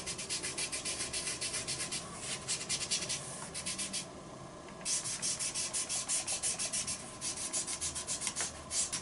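Folded cotton pad rubbed quickly back and forth on paper, working soft pastel powder into it: a dry brushing scratch of several strokes a second, in bouts with a brief pause a little after four seconds in.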